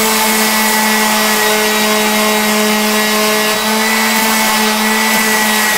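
Electric random orbital sander running steadily against the curved edge of a wooden breasthook, smoothing it: a constant motor hum under a loud sanding hiss.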